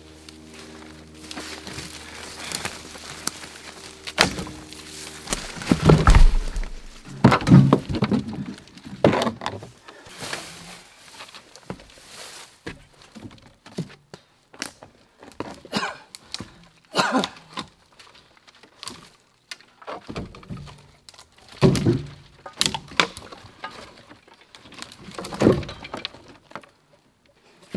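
Cut lengths of dry spruce firewood knocking and clunking as they are dropped and shifted into a pickup truck bed: a series of heavy wooden thunks at irregular intervals, loudest in clusters about six to ten seconds in and again after twenty seconds.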